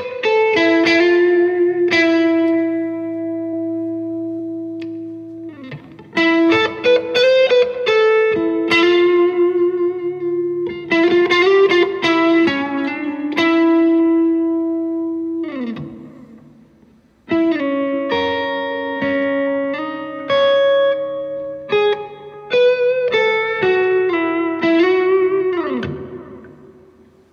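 Electric guitar, a Maybach Teleman T61, played through a valve combo amp. Picked melodic phrases with notes left ringing, broken by two short pauses, ending with a slide down the neck that fades out.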